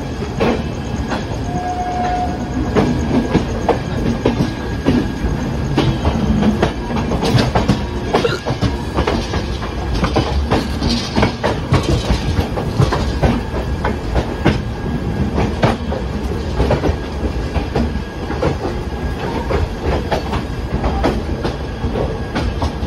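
Express passenger train's coaches running past close by on the next track, steel wheels clattering over rail joints in a fast, continuous clickety-clack.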